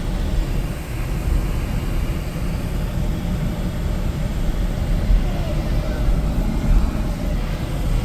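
Steady low rumble of a vehicle driving, engine and road noise with no sudden events.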